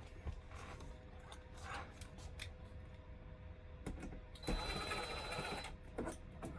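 Power drill-driver running for about a second, driving a screw while the air conditioner cover is put back on, with scattered clicks and knocks of parts and tools being handled before it.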